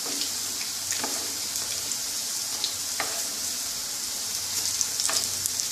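Besan-battered drumstick-flower pakoras deep-frying in a kadai of hot oil: a steady sizzle, with a few faint taps as a wooden spatula turns them.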